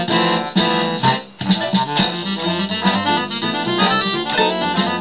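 Yamaha electronic keyboard sounding jumbled clusters of several notes at once as a small dog paws at its keys, new notes starting at irregular moments, with a brief break about a second and a half in.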